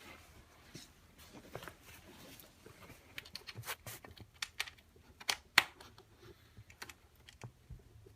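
Irregular light clicks and taps of small metal parts being handled as quick-release pins are fitted through a bike seat's angle brackets, with two sharper clicks a little past halfway.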